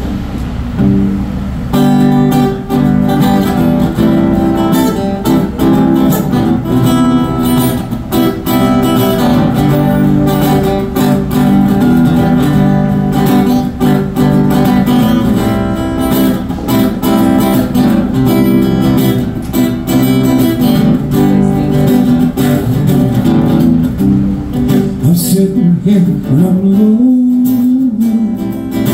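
PRS acoustic guitar playing a blues intro, chords picked and strummed in a steady rhythm, coming in loud about two seconds in.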